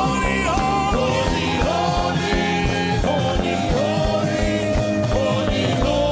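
Gospel worship music: a singing voice holding long, wavering notes over a band with a steady beat.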